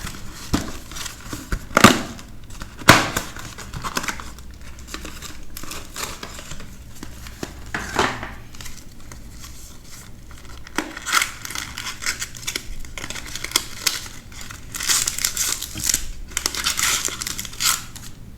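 Packaging of a Magic: The Gathering scene box being handled and opened: crinkling and tearing, with a few sharp clicks about two and three seconds in and a denser burst of crinkling near the end.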